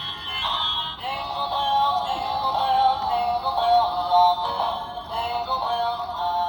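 Dancing Christmas tree toy playing a sung Christmas song through its small built-in speaker.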